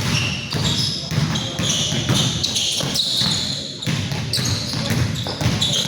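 A basketball being dribbled and bounced on the court during play: a string of repeated thuds, with short high squeaks and players' voices in the background.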